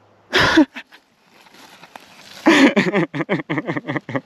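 A man's voice: a short vocal sound, then about two and a half seconds in a run of quick, chopped laughter.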